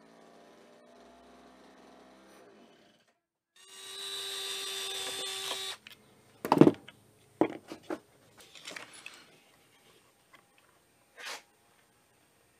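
A small two-stroke hedge trimmer engine idling faintly for about three seconds, then a cordless drill-driver whirring steadily for about two seconds as it backs out the air filter cover screws. This is followed by scattered sharp knocks and clicks of plastic parts and screws being handled.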